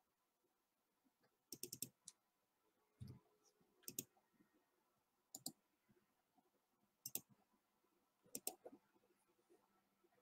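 Faint, sharp clicks of the kind made at a computer, coming singly or in quick runs every second or two. There is a run of several about one and a half seconds in, a duller knock about three seconds in, and a quick pair near the end.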